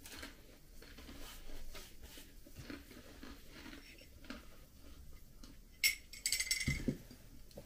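Faint rustles and small clicks of someone eating at a table and handling a plastic bag, then sipping from a mug: a sharp click and a short slurp about six seconds in.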